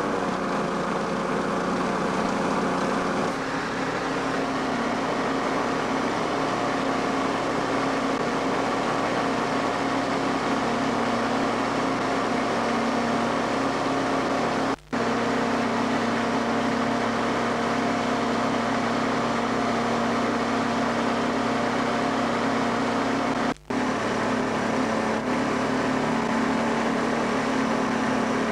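Konig SD-570 four-cylinder two-stroke engine driving a three-bladed wooden propeller, running steadily in flight, with a small shift in the engine note about three seconds in. The sound cuts out for an instant twice, about halfway and about two-thirds through.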